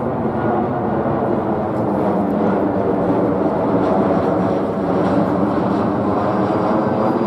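Jet noise from an Airbus A319-111's CFM56-5B turbofan engines as the airliner passes low overhead on its landing approach. It is a loud, steady rush that grows slightly louder over the first half.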